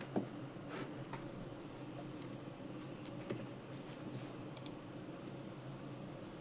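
A few scattered keystrokes and clicks on a laptop, light separate taps spread over several seconds, over a faint steady hum.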